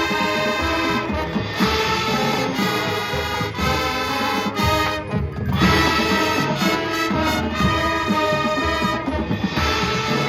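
High school marching band playing, full brass chords over percussion. The sound thins out briefly about halfway through, then the full band comes back in.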